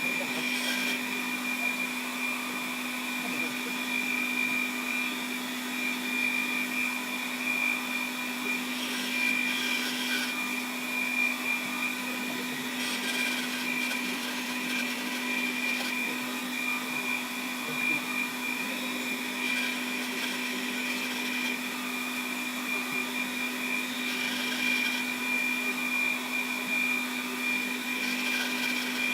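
Small metal lathe running with a steady motor hum and whine, with brief louder hissy patches every few seconds.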